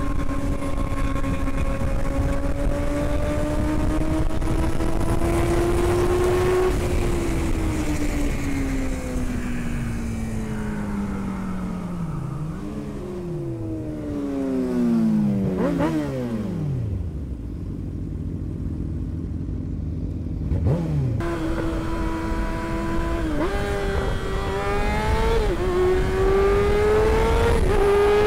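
Sport motorcycle engine heard from the rider's seat over wind noise. It holds steady revs, then the revs fall in several steps as the bike slows, settling low and nearly steady for a few seconds. After a short rev it pulls away again, rising through a couple of quick upshifts.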